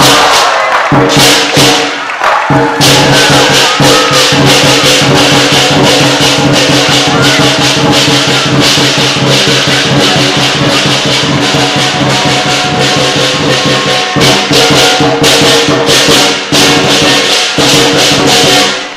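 Lion dance percussion: drum, clashing cymbals and gong played loud and fast, with continual rapid strikes over a steady ringing. It stops abruptly near the end.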